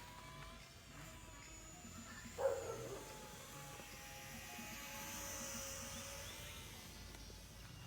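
Electric motor and propeller of a small foam RC airplane whining in flight: faint, with a few steady tones that drift slightly in pitch. A brief louder sound about two and a half seconds in.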